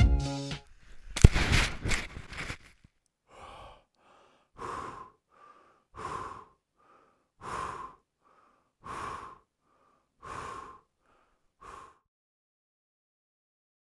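A loud rush of noise about a second in, then a person lying buried in snow breathing hard, in and out about every second and a half, until the breathing stops near the end.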